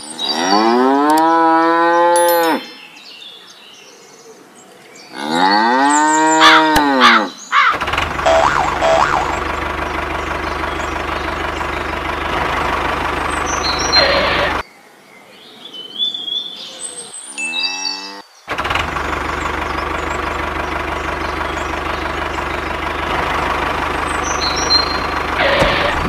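A cow mooing: two long moos, each rising then falling in pitch, and a shorter one later. In between, a steady engine runs, starting and stopping abruptly twice.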